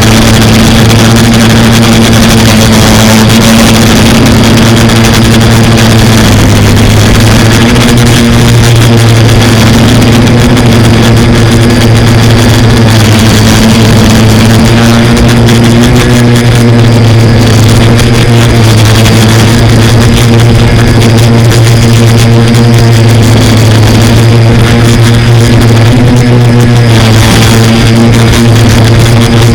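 Quadcopter motors and propellers running with a loud, steady hum, the pitch shifting only slightly.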